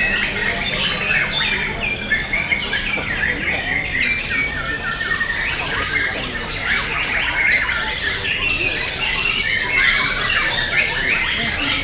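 Several caged white-rumped shamas singing at once: a dense, unbroken tangle of short overlapping whistled phrases, with a low background murmur beneath.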